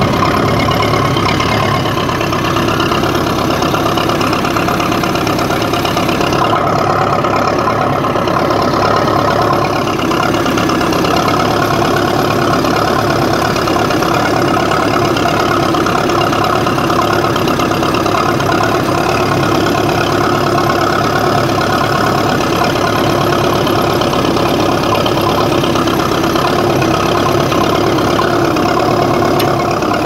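1954 Ferguson TED-20 tractor's four-cylinder TVO engine running steadily under load, pulling a two-furrow plough through the soil, heard from the driver's seat.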